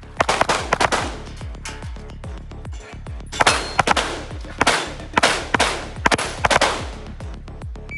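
Rapid pistol shots from a custom Victor Precision open-division race gun, fired in quick pairs and strings with a pause of about two seconds partway through, over background music with a steady beat.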